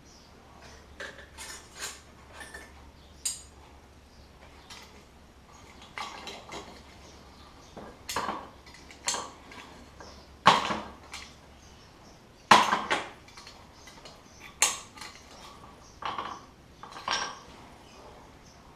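Irregular metallic clinks and knocks as a freshly poured silver round is handled and worked out of its mold, with two much louder knocks past the middle.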